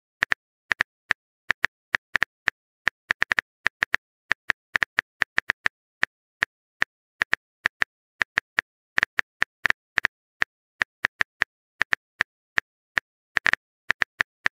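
Phone keyboard typing sound effect: an irregular run of short, sharp key clicks, several a second, as a long text message is typed out.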